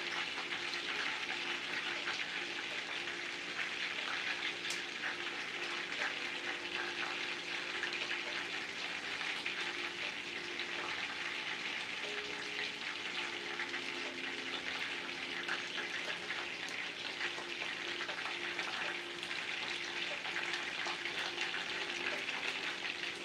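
Chicken pieces frying in oil in a skillet on an electric stove: a steady sizzle, with a faint steady hum underneath.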